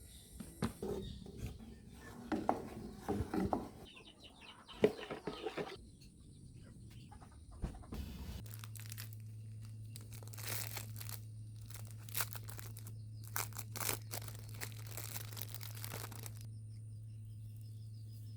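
Light handling noises: rustling, crinkling and small knocks. About eight seconds in, a steady low hum starts, with bursts of crinkling over it.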